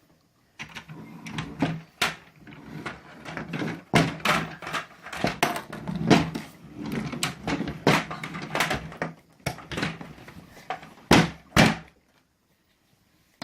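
Repeated clattering, clicks and knocks of small hard plastic toys and egg capsules being handled and knocked together, with two loud sharp knocks near the end.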